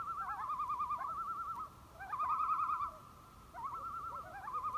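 Common loons giving their tremolo call, a rapid quavering laugh, in three bursts of one to two seconds. Two or more birds overlap at slightly different pitches.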